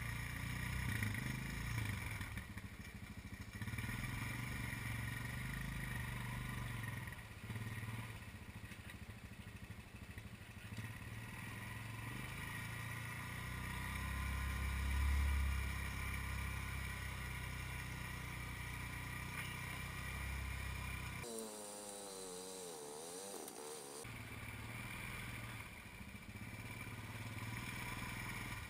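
Honda ATV engine running and revving as the quad churns through deep muddy water, with water splashing at the wheels. The revving is loudest about halfway through; a few seconds later the engine drone briefly gives way to a wavering whine before it returns.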